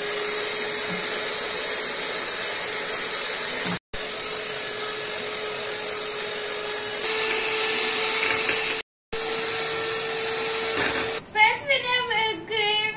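Sujata electric hand mixer running steadily, its beaters whipping cream in a glass bowl. The motor's whine rises a little in pitch about seven seconds in and stops about eleven seconds in, and a boy's voice follows.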